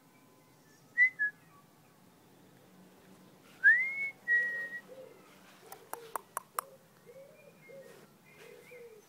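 Whistling: two short whistled notes about a second in, then a louder whistle that rises and holds one pitch near four seconds. Low repeated notes follow through the second half, with a few sharp clicks around six seconds.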